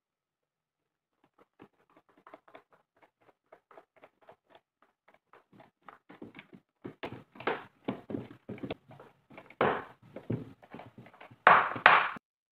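Hand screwdriver driving small screws into a brass hinge on a plywood box: a run of short creaks and clicks, a few a second, growing louder in the second half, with the loudest pair just before the end.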